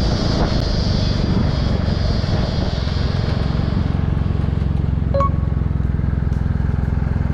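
Kawasaki W800 motorcycle's air-cooled parallel-twin engine running while the bike brakes hard to a stop on its new Brembo front caliper. A hiss fades away over the first four seconds as it slows, leaving the engine idling steadily, with one short beep about five seconds in.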